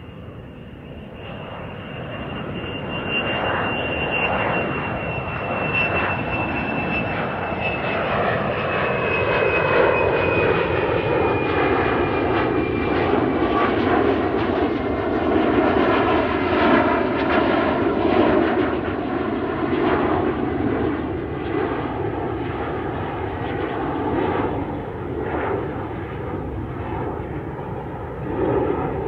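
Boeing 717 jet with two rear-mounted Rolls-Royce BR715 turbofans taxiing past. The engines grow louder over the first few seconds and then run steadily, with a high fan whine that slowly falls in pitch as the jet goes by.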